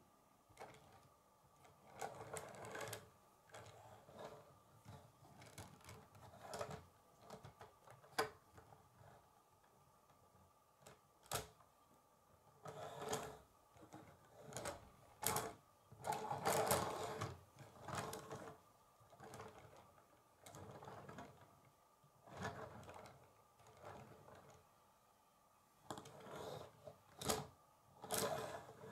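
Plastic K'nex pieces of a built toy car clicking and rattling as it is handled and moved about on a wooden tabletop. The sound comes in irregular bursts, with a few sharp single clicks.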